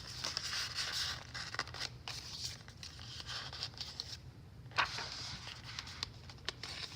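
Paper rustling and crinkling as pages and paper ephemera in a handmade junk journal are handled and turned, with many small crackles and one sharper rustle about five seconds in.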